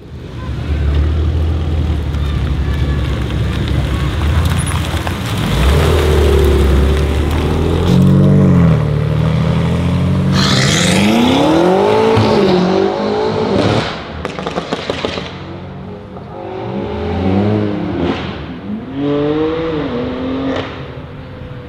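BMW M3 G80's twin-turbo straight-six through an Akrapovic exhaust, running at low revs, then accelerating hard with the pitch rising through several gear changes. About two-thirds through, a rapid crackle of exhaust pops comes as the throttle is lifted.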